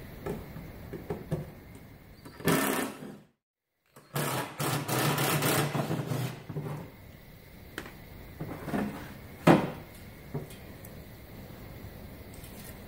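Cordless impact driver with a square bit running in short bursts, backing out the screws that hold a steel rib to the bus's side panel; the longest run lasts about two and a half seconds. A single sharp metallic knock about nine and a half seconds in is the loudest sound.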